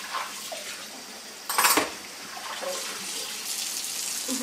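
Kitchen tap running at the sink, with a short, loud clatter of kitchenware about a second and a half in and a few lighter clinks.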